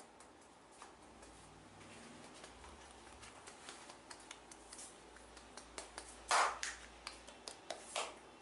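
Hands working on a head and neck during a massage: soft rubbing with many scattered light clicks and taps, and two louder hits at about six seconds and eight seconds.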